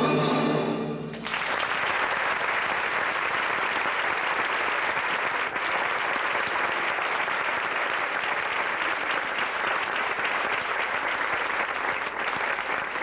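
Orchestra playing the last moment of a ballet number, which ends about a second in. A theatre audience then applauds steadily, and the applause starts to die down near the end.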